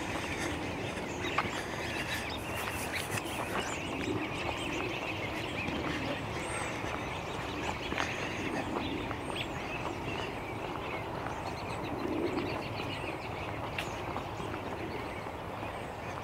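Footsteps of a person walking on a paved path, with an outdoor background of faint bird calls.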